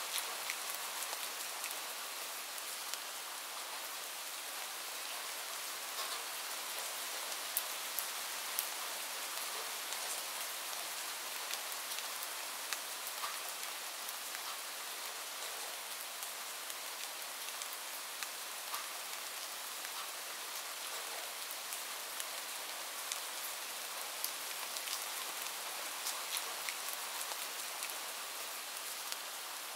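Steady rain falling: an even hiss scattered with sharp ticks of individual drops.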